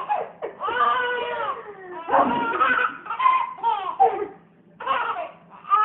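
A baby's high-pitched wails, like crying, in several bursts with a short lull about four and a half seconds in.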